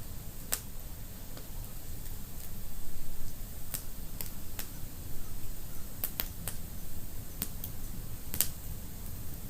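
Wood fire crackling in a fireplace: irregular sharp pops and snaps, about a dozen, over a steady low rumble of burning.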